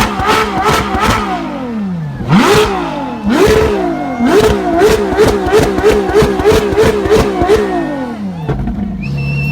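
Ferrari LaFerrari Aperta's V12 being revved hard while stationary. A few sharp blips come first, then two bigger revs that climb and fall away, then a fast run of short blips about three a second. The revs drop back to a low idle near the end.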